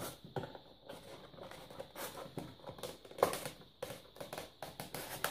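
Irregular small clicks, taps and rubbing as plastic parts are handled and pressed against a polystyrene Apidea mating nuc, with one sharper knock a little past three seconds in.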